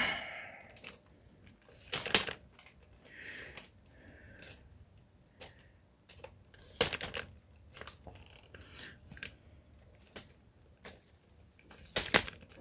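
Handling noise from a phone being moved about: scattered clicks and knocks, the sharpest about 2, 7 and 12 seconds in, with faint rustling in between.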